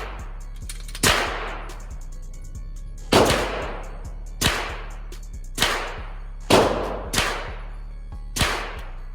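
Pistol shots from a Glock fitted in an MCK micro conversion kit: seven single shots fired one at a time at uneven intervals about a second apart, each with a short echoing tail.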